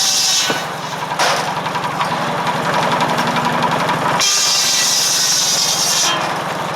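Firewood circular saw driven by a 1945 McCormick W-4 tractor, the blade cutting through wood with a high-pitched whine that ends about half a second in and comes again from about four to six seconds in. The tractor engine runs steadily underneath.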